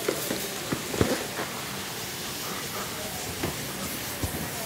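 Sausage sizzling steadily as it browns in a hot skillet, with a few faint light taps over it.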